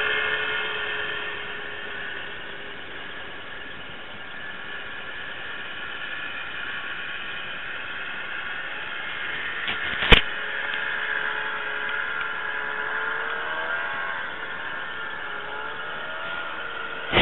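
Snowmobile engine running with a steady whine that eases off over the first couple of seconds and wavers in pitch later on. A sharp click comes about ten seconds in and another at the end.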